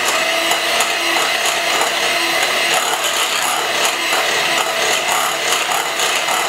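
Electric hand mixer running at a steady speed, its beaters whisking batter in a glass bowl.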